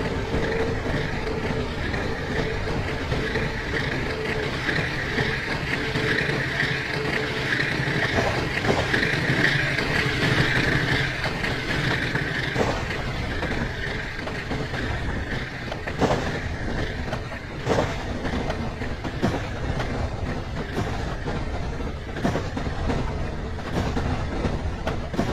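Steady rumbling running noise with a scattering of sharp clicks in the second half.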